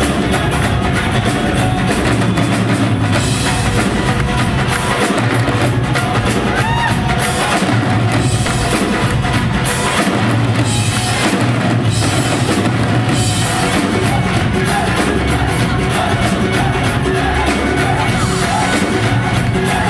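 Live band music: several Punjabi dhol drums beaten together in a driving rhythm, with electric guitar and bass.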